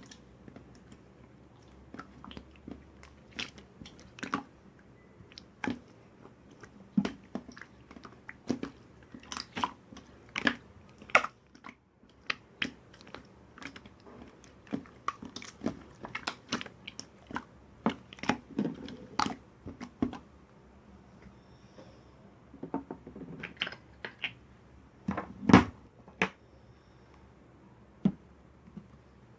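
Crunchy chewing: irregular sharp crunches and bites, some in quick clusters, the loudest about 25 seconds in.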